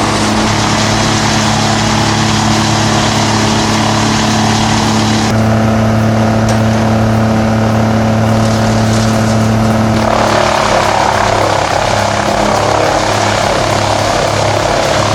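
Wood chipper's engine running steadily under power, its sound changing abruptly about five seconds in and again about ten seconds in.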